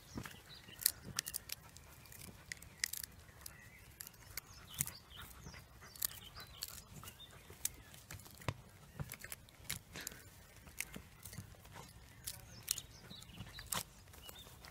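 Cavalier King Charles Spaniel puppies playing: many light clicks and rustles at irregular intervals.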